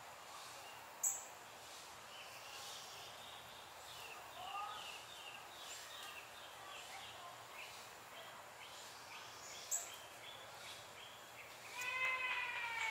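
Outdoor garden ambience with faint, repeated bird chirps, a sharp click about a second in, and near the end a louder call that slides down in pitch.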